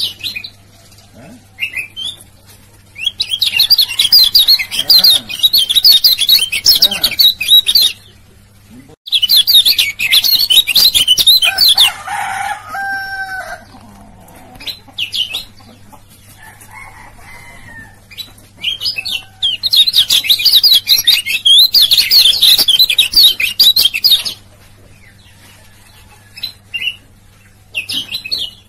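Kecial kuning white-eye singing a fast, high twittering, chattering song in three long bouts, with short single chirps between them. A lower-pitched, shorter call breaks in about halfway through.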